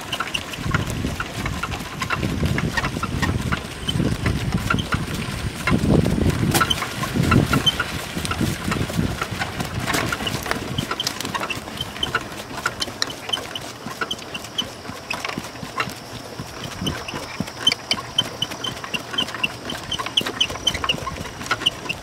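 Miniature horse pulling a two-wheeled cart over grass: the cart and harness give off a steady patter of small rattles and creaks as it rolls, with a low rumble that is heaviest in the first several seconds and eases off after that.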